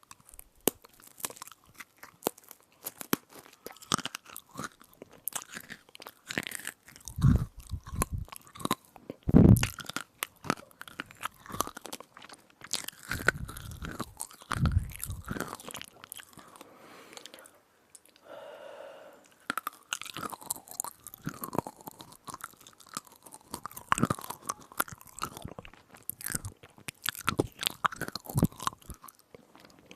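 Close-miked crunching and chewing of a crisp edible spoon, a dense run of sharp crackles as teeth bite and grind it, with a few heavier low thumps.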